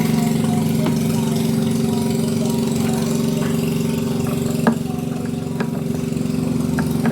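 A steady mechanical hum, like an engine idling, with a few light clicks.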